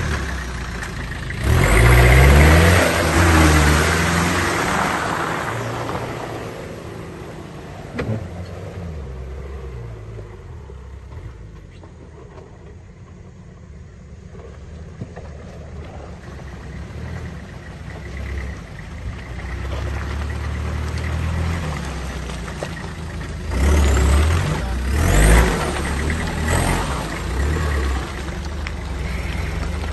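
Off-road 4x4's engine revving hard in two bursts, first near the start and again about three-quarters through, with lower, steadier running in between.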